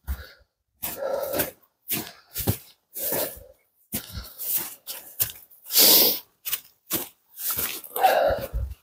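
Footsteps crunching in frosty snow, a separate crunch about every half second to second as a hiker walks past.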